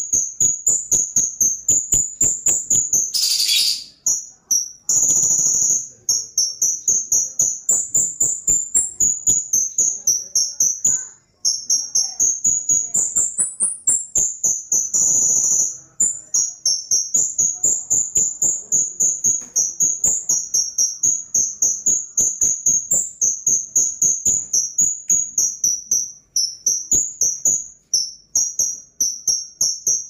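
Cucak cungkok leafbird singing nonstop in a fast, high chatter of repeated notes, about three a second. A few longer held notes and one harsh rasp a few seconds in break the run.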